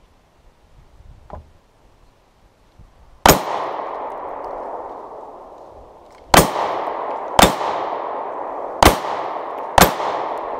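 Five pistol shots from a Glock 27 compact .40 S&W pistol, the first about three seconds in and the rest in quicker succession near the end. Each shot is followed by the ringing clang of a struck steel target that fades over a couple of seconds.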